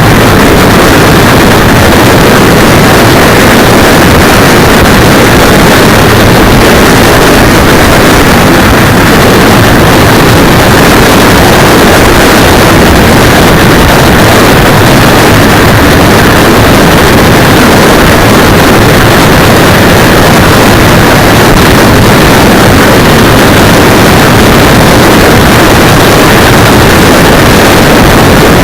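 Steady wind rush over the microphone of a cheap 808 keychain camera strapped to a moving motorcycle's handlebar brake cylinder, with the motorcycle's running noise mixed in. It stays at full level and sounds overloaded and distorted.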